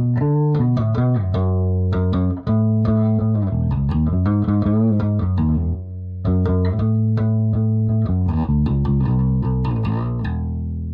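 Electric bass guitar playing a quick run of plucked notes over a low, sustained line, the last note left ringing near the end.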